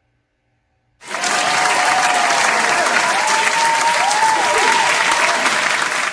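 Applause sound effect, starting suddenly about a second in and cutting off abruptly just before the end.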